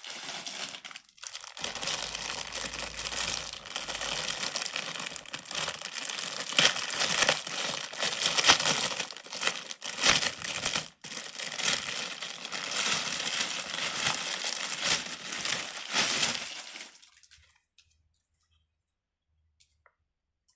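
Pop-it fidget toy being handled and popped: a dense run of crackling and clicking that goes on for about seventeen seconds, then stops.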